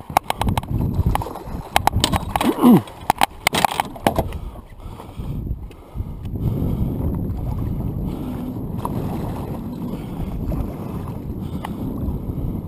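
Water sloshing against a small boat's hull, with wind on the microphone. In the first four seconds this is broken by a run of sharp knocks and clicks and one short falling squeak, as the rod and reel are handled while the musky is fought beside the boat.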